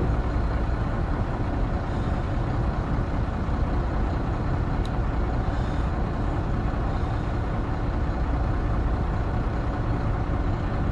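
Fishing boat's engine running steadily, a constant low drone heard from right beside the engine room.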